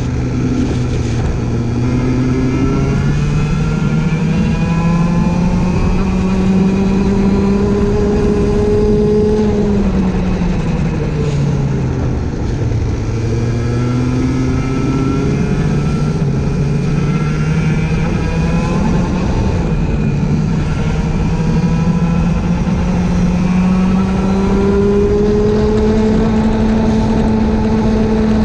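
Race vehicle's engine heard onboard under hard acceleration. Its pitch climbs slowly over several seconds, drops sharply about ten seconds in as the driver lifts off, then climbs again through a long pull and falls once more near the end. A steady rushing hiss runs underneath.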